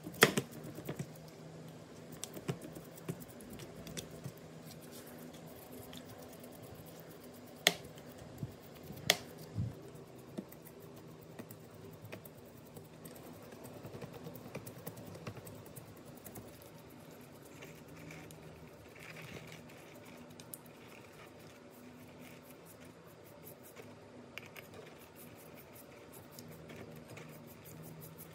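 Stiff bristle brush scrubbing rusty vise parts in a shallow bath of liquid: a continuous fine, scratchy, wet patter, with a few sharp clicks of metal parts knocking, one at the start and two about eight and nine seconds in.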